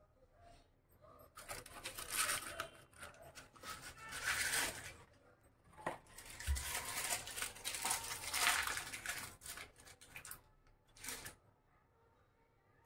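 Paper or plastic packaging crinkling and tearing as it is handled, in two long stretches of rustling and a short last crackle about eleven seconds in.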